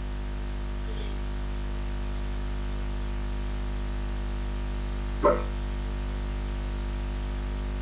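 Steady electrical mains hum on the recording, with one brief, short sound about five seconds in.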